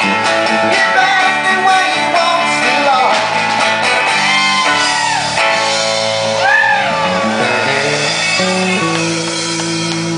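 A small band playing live rock music: electric bass and acoustic guitar with a singing voice that slides up and down in the middle. Long low notes are held near the end.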